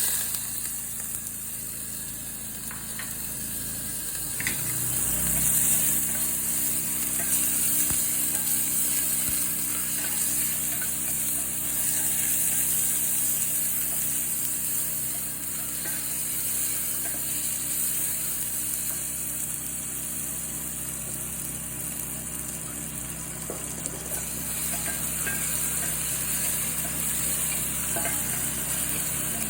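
Chopped onion and garlic sizzling in hot olive oil in a frying pan, with a steady hiss and now and then the faint scrape of stirring. A steady low hum runs underneath.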